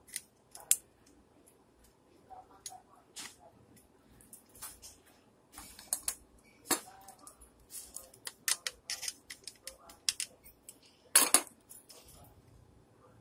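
Irregular metallic clicks and clinks of hand tools and pipe fittings being handled while water-line clamps are fitted, with one louder clack about eleven seconds in.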